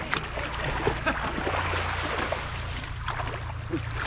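Sea water splashing and sloshing around people wading waist-deep, with faint distant voices and a low wind rumble on the microphone.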